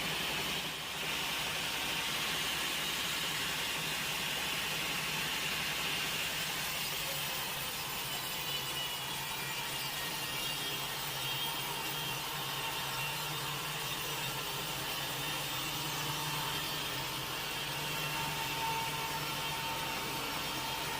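Sawmill saw running steadily as it cuts through a log, a continuous hum and hiss with a short dip about a second in.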